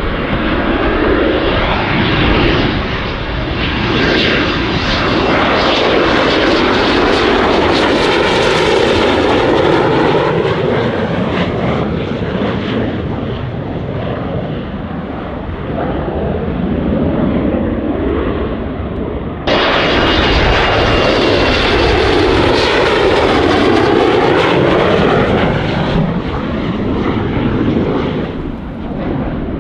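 Panavia Tornado jet fighters passing low on landing, their twin RB199 turbofan engines swelling and fading as each goes by. A second jet starts abruptly about two-thirds of the way through.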